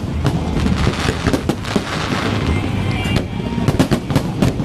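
Aerial fireworks going off in a rapid string of sharp bangs, thickest near the end.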